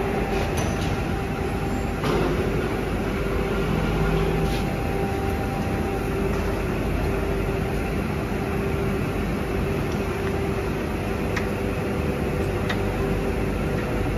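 Steady drone of workshop machinery running, with a constant mid-pitched hum through it and a few faint clicks.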